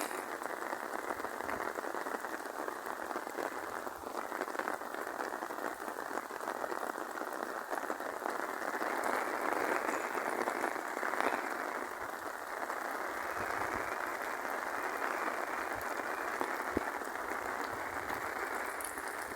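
Steady rain falling, a little heavier partway through.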